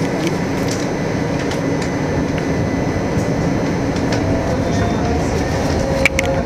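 AnsaldoBreda Sirio tram running along its track, heard from inside the car: a steady rumble of wheels and running gear with scattered light clicks, and one sharper click about six seconds in.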